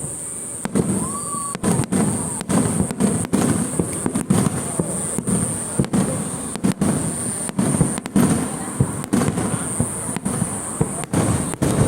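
Fireworks display: shells bursting in a rapid, irregular barrage of booms and bangs, several a second.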